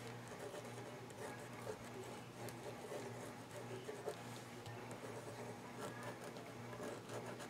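Faint scratching of a black pen tip drawing short strokes on paper, over a low steady hum.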